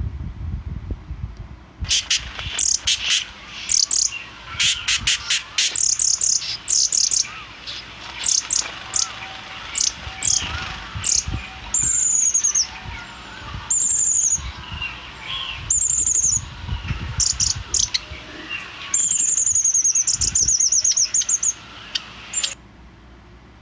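Birds chirping: a long run of rapid high chirps mixed with short downward-sweeping calls. It starts abruptly about two seconds in and cuts off suddenly near the end.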